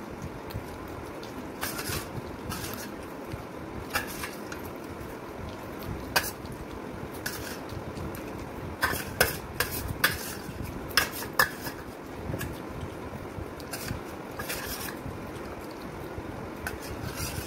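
Metal spoons clinking and scraping against stainless steel plates as noodles are scooped and eaten, in irregular clinks. They come most often around the middle.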